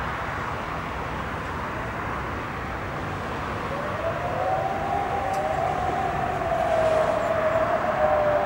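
Civil-defence siren sounding the rising-and-falling wail of the alarm signal, coming in about three and a half seconds in over a steady background rush.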